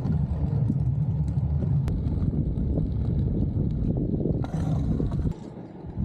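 Low steady rumble of a scooter riding along the road. A short hiss comes about four and a half seconds in, and the rumble drops away suddenly near the end.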